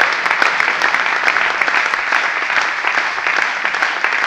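A small crowd of spectators clapping after a point ends in a table tennis match, steady applause with many separate hand claps.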